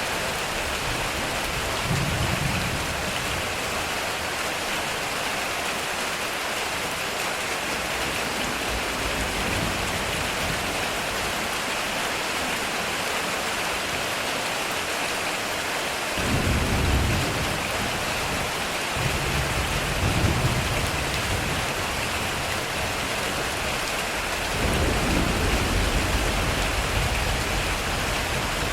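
Heavy rain drumming on a metal roof as a steady, dense hiss, with low thunder rumbles rolling in about two seconds in, again from about 16 to 21 seconds, and once more near the end.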